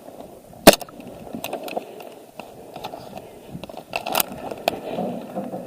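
Rustling and scraping of movement, with a loud sharp snap a little under a second in, a second sharp snap about four seconds in, and a few fainter clicks.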